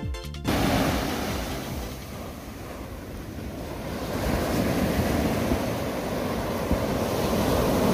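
Sea waves breaking and washing up a sandy beach, with wind buffeting the microphone. The surf eases off around two seconds in and swells again from about four seconds in.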